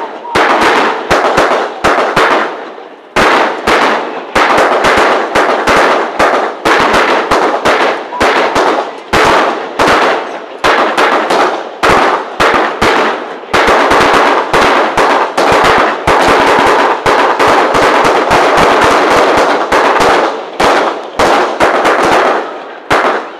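Rapid, sustained gunfire of blank rounds from a line of World War II reenactment firearms, many shots overlapping into a near-continuous volley with only brief lulls. The firing stops about a second before the end.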